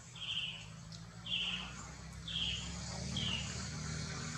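An animal giving four short, high-pitched calls about a second apart, each dipping slightly in pitch.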